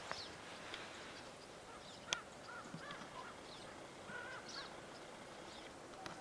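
Birds calling in the woods: a scatter of short, faint chirps. A single sharp click about two seconds in.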